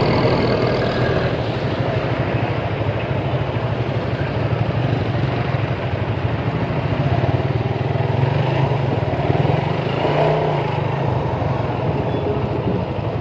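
Motorcycle engine running steadily at low speed in slow traffic, heard from the rider's seat, with other traffic around it.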